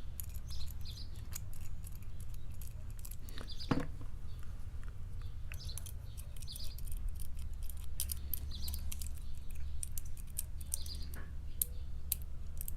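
Lock pick and tension wrench working the pin stack of a Carbine padlock: many small, irregular metallic clicks and faint scratchy squeaks as pins are set, over a steady low hum.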